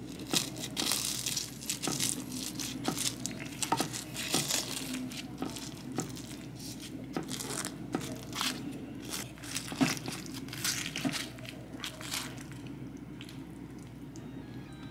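A slotted spatula cutting into the crisp, browned cheese crust of a baked witlof gratin (chicory, ham and cheese) in a baking dish: irregular crunching and crackling, thinning out about twelve seconds in.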